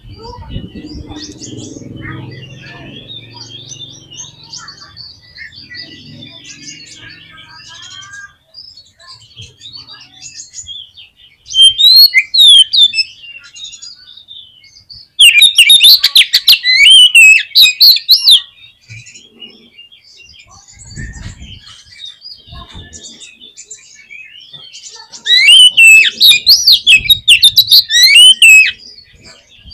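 Oriental magpie-robin (kacer) singing three loud bursts of rapid, varied, jumping notes, about a dozen seconds in, a few seconds later, and near the end, over steady fainter twittering of birds.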